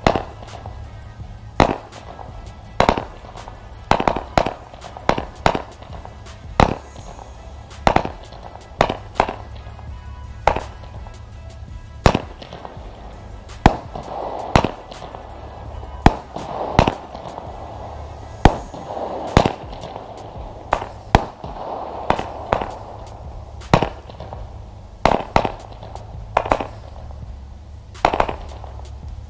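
Consumer firework compound battery firing a long sequence of shots, about one bang a second and some in quick pairs. A rushing crackle of burning effects fills the gaps in the middle stretch.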